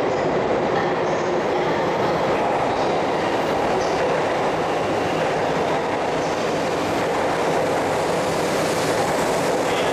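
E4 series Shinkansen train running slowly into the platform, a steady noise of wheels on rail and running gear with a little clacking.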